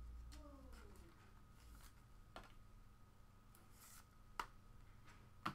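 Near silence: faint room tone with a steady hum and a few soft clicks, the two loudest about four and five and a half seconds in.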